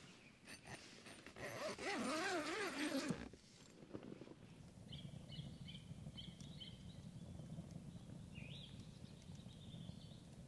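A loud animal call, its pitch wavering up and down, lasts about two seconds. It is followed by a scatter of short, high, faint bird chirps.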